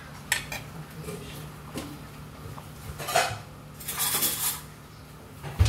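Metal utensils and dishes clinking: a few separate clinks, with a louder clatter about three seconds in and a low thump near the end.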